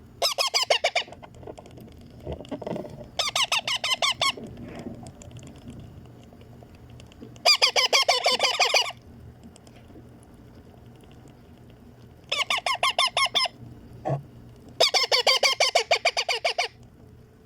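Baby Indian ringneck parakeets giving their rapid, rhythmic food-begging calls while being hand-fed, in five bursts of about a second or so each.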